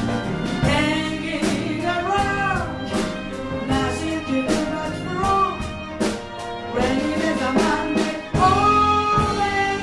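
Live jazz band of piano, bass, drum kit, violin and a string section playing a slow song, a lead melody gliding and bending over the accompaniment with steady cymbal ticks.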